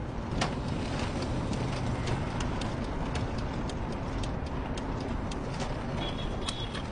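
Steady road and engine noise inside a moving car's cabin, with scattered light ticks and a brief high chirp about six seconds in.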